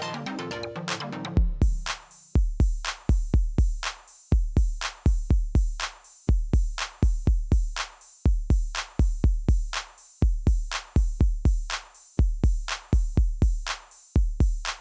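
Background electronic music with a drum-machine beat. A synth melody drops out about a second and a half in, leaving a repeating pattern of deep, heavy kick-drum hits under a high hi-hat shimmer.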